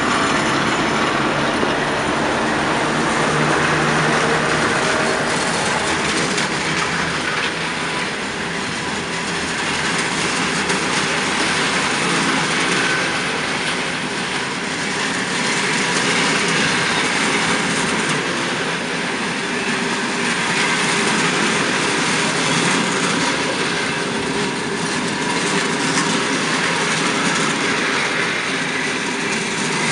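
TEP70 diesel locomotive running under power as it pulls away, followed by a long train of passenger coaches rolling past, wheels running steadily over the rails.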